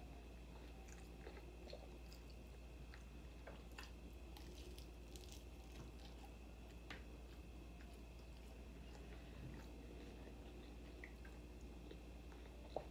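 Faint close-up chewing and biting of a crisp fried taco shell, with scattered small crunches and clicks. A sharper pair of clicks comes near the end.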